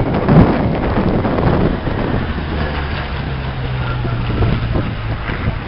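Jet aircraft flying past, a loud rush of engine noise with a steady low hum underneath, loudest about half a second in, with wind buffeting the microphone.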